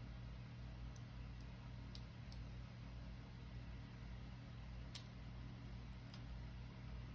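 Faint, sharp metallic clicks of lockpicking tools working a small brass lock, a few scattered clicks with one louder click about five seconds in, over a steady low room hum.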